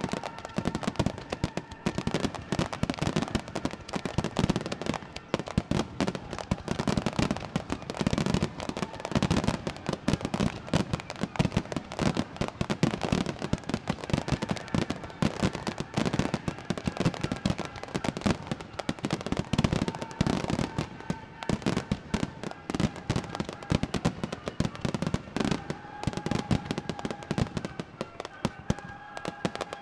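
Fireworks display: many fireworks bursting in quick succession, a dense, continuous run of bangs and crackles.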